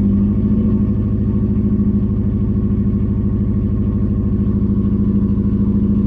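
Subaru Impreza's flat-four boxer engine running with a bad misfire.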